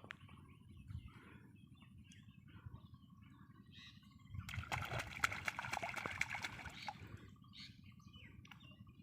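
Outdoor rural ambience: birds chirping over a low background rumble, with a burst of water splashing and sloshing for about two and a half seconds in the middle.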